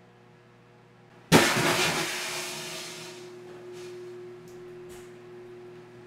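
A bottle of white Zinfandel bursting inside a running microwave oven: a sudden loud bang a little over a second in that dies away over a second or so. The oven's steady hum goes on underneath, with a few faint ticks afterwards.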